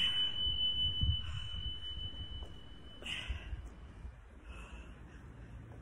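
A single long, steady, high-pitched electronic beep that cuts off about three seconds in: an interval timer signalling the start of a 40-second work period.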